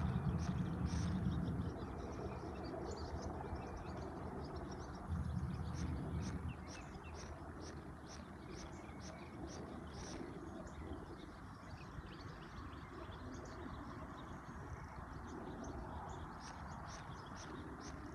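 Outdoor pond-side ambience: short high chirps repeating a few times a second over a steady hiss, with two brief low rumbles, one at the start and one about five seconds in.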